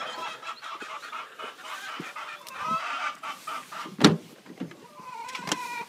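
Chickens clucking and squawking in short, broken calls, with one sharp knock about four seconds in.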